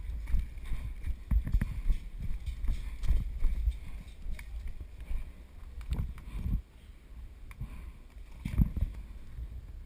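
Running footsteps and a low rumble of wind and handling on a body-worn camera microphone. The thumps come thick for the first few seconds, then thin out to a few single knocks.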